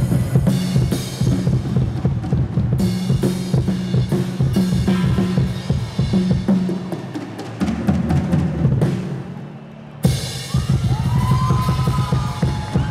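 Pearl drum kit played fast, with kick drum, snare and cymbal hits, over a bass line. The playing fades briefly about two-thirds of the way through, then comes back in with a sharp hit.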